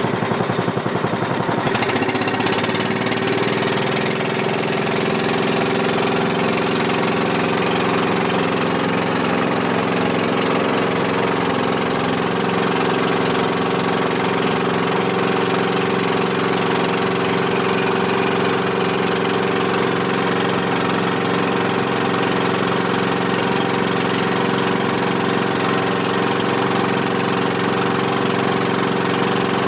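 A small passenger boat's engine running steadily under way. It settles to an even pitch about two seconds in.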